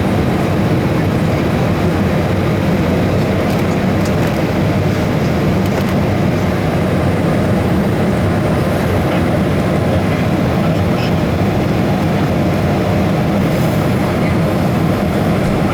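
Steady roar of the cabin air-conditioning and ventilation inside a Boeing 757-200 cabin at the gate, an even rumbling hiss that does not change.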